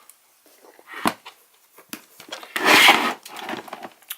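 Handling noise from a Snap-on Modis scan tool and its rubber side grip being handled: a knock about a second in, a loud half-second rubbing scrape in the middle, and small clicks and taps.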